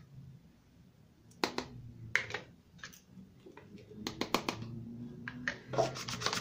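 Plastic squeeze-handle flour sifter: scattered clicks and taps as a spoon adds flour and cocoa to it, then the handle squeezed over and over near the end, a quick, even run of clicks.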